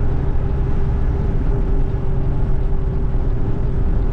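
Steady low vehicle rumble with a constant hum, the engine and road noise of a moving vehicle running evenly without change.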